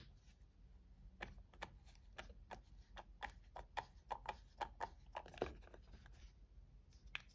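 Small screwdriver turning the pivot screw of a folding knife: a run of faint light clicks, about three a second, stopping after about five seconds, with one more click near the end.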